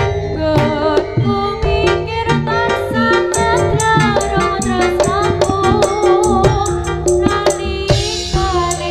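Live jaranan gamelan music: quick, even percussion strokes and steady low pitched tones under a wavering high melody line.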